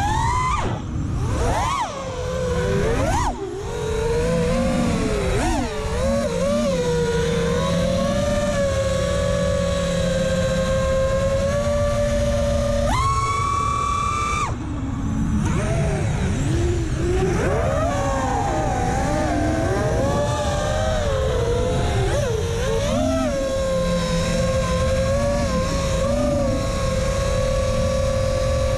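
FPV quadcopter's electric motors and propellers whining, the pitch constantly rising and falling with the throttle, with a sharp jump to a higher, louder whine for about a second and a half midway through, under a steady low rush of air.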